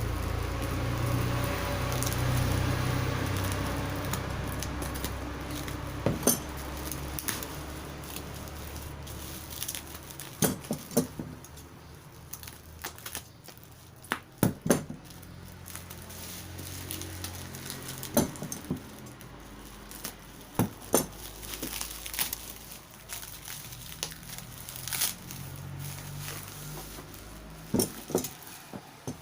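Hands unpacking a box: scattered clicks, taps and crinkling of cardboard and plastic wrapping, irregular throughout. A passing road vehicle's engine rumbles for the first few seconds and fades.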